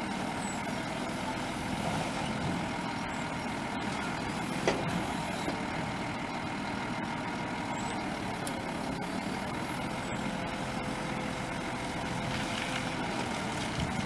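Diesel truck engine running steadily to drive a truck-mounted hydraulic grapple crane as it swings and lowers its grab, with a faint steady whine over the engine. A single sharp knock comes about four and a half seconds in.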